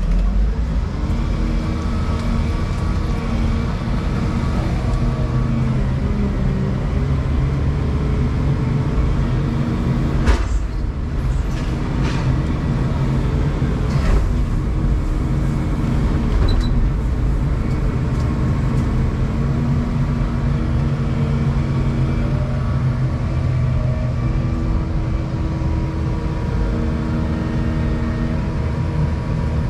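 Volvo 235EL excavator's diesel engine and hydraulics working, heard from inside the cab, the engine note shifting as the load changes. A few sharp knocks come in the middle, the loudest about ten seconds in.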